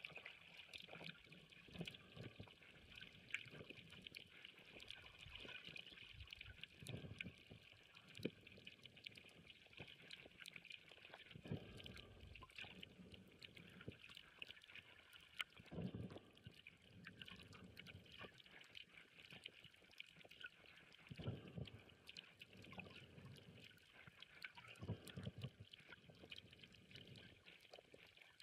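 Faint underwater reef ambience: a steady crackling hiss of fine clicks, with low muffled water surges every four to five seconds.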